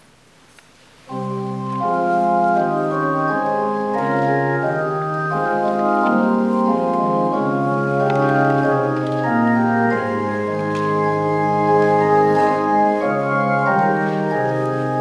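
Organ playing held chords, with sustained notes that change together in blocks, starting about a second in.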